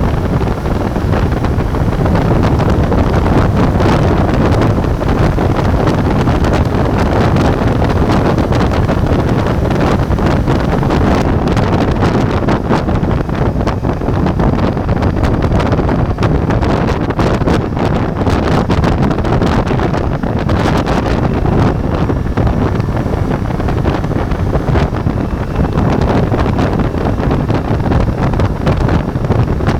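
Ducati Multistrada V4 motorcycle under way, its engine running beneath heavy wind buffeting on the action camera's microphone. The wind noise is loud and steady, with constant gusty thumps.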